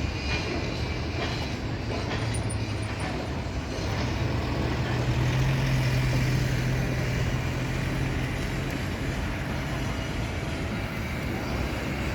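Steady low rumble of a running vehicle engine over city traffic noise, swelling a few seconds in and easing off again.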